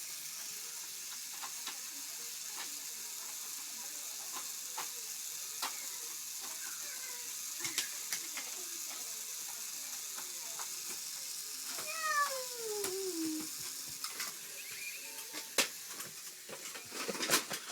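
A cat meows: one long call about twelve seconds in, falling in pitch, with fainter calls earlier. Light clicks and knocks sound over a steady hiss.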